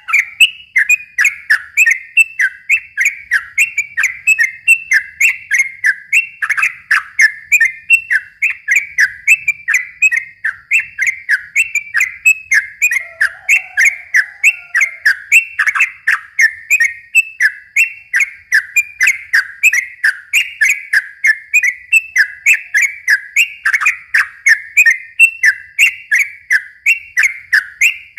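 Yellow-vented bulbul (trucukan) singing a long, unbroken run of rapid chattering notes, about three a second, each note slurring downward.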